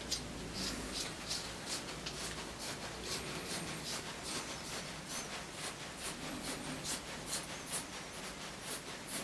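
A nut being screwed by hand onto a freshly lathe-cut metric thread on an aluminium extension piece: a string of small irregular metallic ticks and light scrapes, two or three a second.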